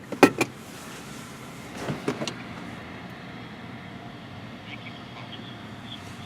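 Steady hum of a car's interior, with a few short knocks and clicks in the first couple of seconds.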